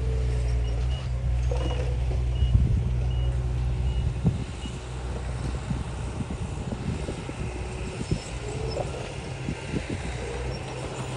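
Heavy diesel earthmoving machinery running, with a back-up alarm beeping about twice a second. The beeping stops about four seconds in, and the engine eases under scattered clanks and knocks.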